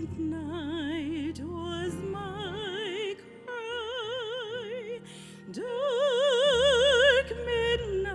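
A woman singing solo, slow long-held notes with a wide, even vibrato, pausing briefly for breath between phrases.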